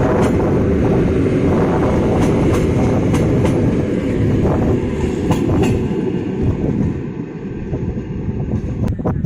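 Passenger coaches of a PKP Intercity train rolling past on the platform track, the wheels clicking at intervals over rail joints. The sound drops away after about six seconds as the last coach moves off.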